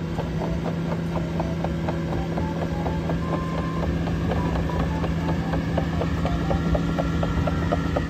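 Cat AP655F tracked asphalt paver running and crawling along: a steady diesel engine hum with a rapid run of short clicks and squeaks, about five a second, from its moving tracks.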